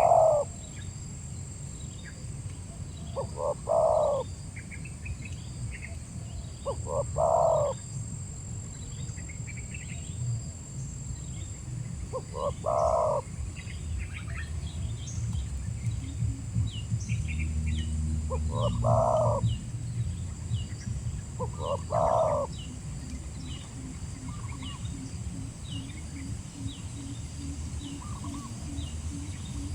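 Spotted dove cooing: six short coo phrases a few seconds apart, with small birds chirping faintly in the background over a steady low rumble.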